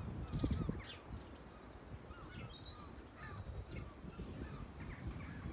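Birds chirping and calling in short, scattered notes, over a low rumble that is loudest about half a second in.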